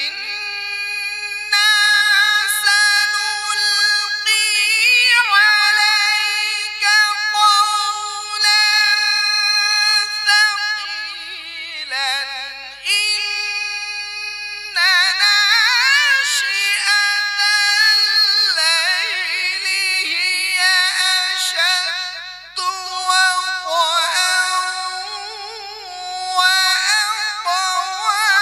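A man reciting the Quran in the melodic chanted style (tilawat) through a microphone: long, high held notes with wavering ornaments, in several phrases broken by short pauses for breath.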